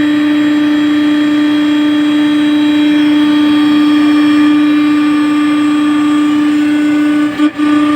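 CNC turning lathe running with a loud, steady whine that holds one pitch, faltering in a few brief dips near the end.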